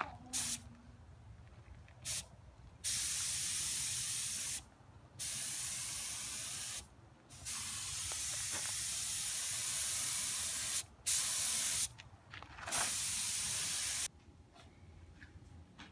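Gravity-feed spray gun on a compressed-air hose hissing as it sprays red automotive paint, switching on and off with the trigger: two short blips, then five longer passes of up to about three seconds each.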